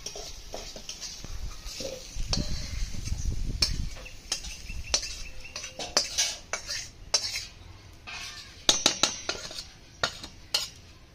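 A spatula scraping and knocking against a karai (wok) as fried vegetables are scraped out into a steel bowl, with scattered clinks throughout and a quick run of sharp taps near the end. A low rumble a couple of seconds in.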